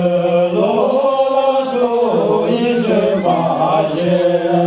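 Voices singing a Tibetan song in long, held, chant-like notes, sliding from one note to the next.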